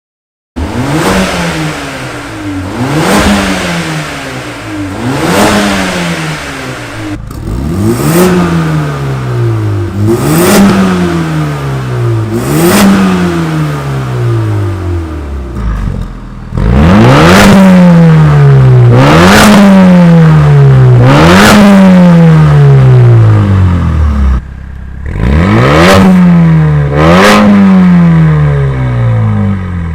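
Mercedes-AMG A35's turbocharged 2.0-litre four-cylinder revved repeatedly through its exhaust: about one blip every two seconds, each a quick rise in pitch followed by a slower fall back to idle. The exhaust gets clearly louder about halfway through.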